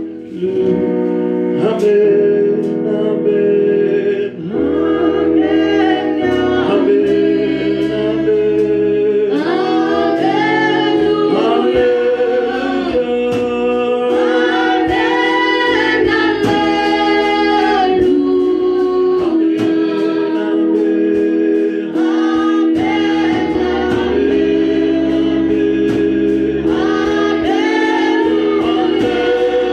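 Gospel song: voices singing over steady held instrumental chords.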